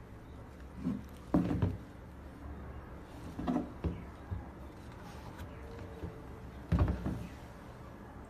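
Handling noise from a pair of chunky rubber-soled sneakers being lifted, turned and set down on a table: a few short, soft knocks and rustles, the loudest near the end, over a low steady background hum.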